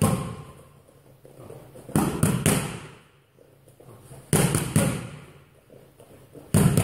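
Boxing-glove punches landing on focus mitts in quick combinations of three or four sharp slaps, each echoing in a large hall. One combination comes right at the start, another about two seconds in, another about four and a half seconds in, and one more near the end.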